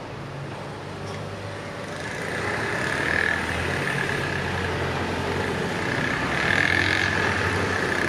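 Road traffic crossing the level crossing: a route bus drives across with its engine running, with motor scooters and cars passing. It grows louder about two seconds in.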